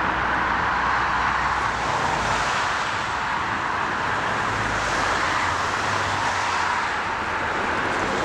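Steady rushing noise of a jet airliner's engines during a landing, holding even throughout with a low rumble beneath.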